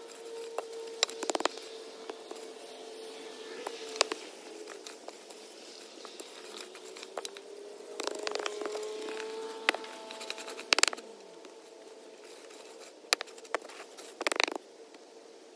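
A wooden board dragged across loose sand to screed it level, scraping in short strokes, with sharp knocks as the board is set down and shifted. A faint steady hum that wavers in pitch runs underneath.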